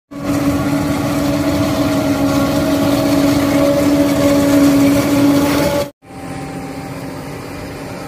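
Steady, loud machine drone with a clear low pitch, cutting off abruptly just before the six-second mark. After a brief gap a quieter, lower engine drone runs on, farm machinery heard from inside a cab.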